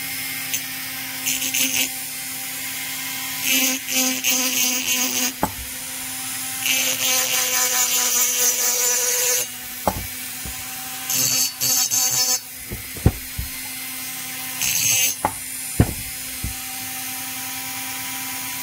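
A flex-shaft rotary tool runs with a steady hum. About five times its small bit bites into the port edge of a two-stroke chainsaw cylinder with a high grinding hiss, chamfering the edge, and there are a few light knocks between passes.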